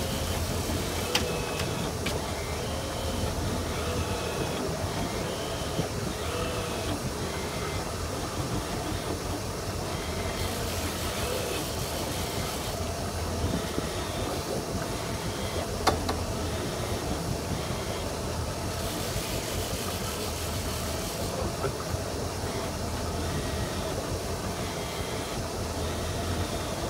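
Boat engine running steadily under a constant hiss of wind and water. Two sharp clicks stand out, one about a second in and one around the middle.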